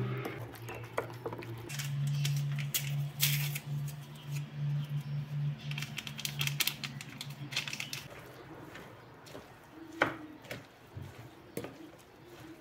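A wooden spoon stirring grated zucchini batter in a ceramic bowl: wet squishing with scattered clicks and scrapes against the bowl, and a sharper knock about ten seconds in. A low steady hum runs under the first half.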